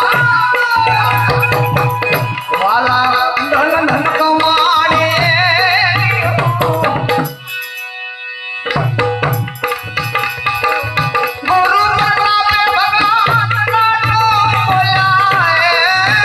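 Santvani devotional folk music: tabla beating a steady rhythm under a wavering melody line, which drops for about a second halfway through to a few held tones.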